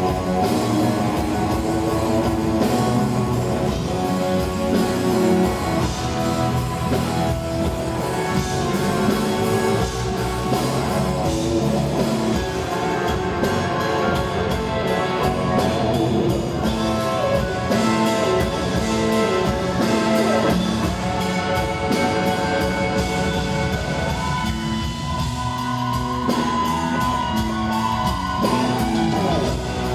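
Live rock band playing: an electric guitar lead through Marshall amplifiers over drum kit and percussion.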